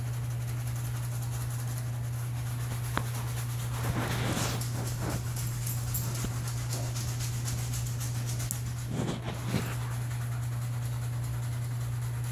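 Surgical scrub brush scratching over a forearm lathered with betadine soap in short strokes, the scrubbing loudest a few seconds in and again near three-quarters through, over a steady low hum.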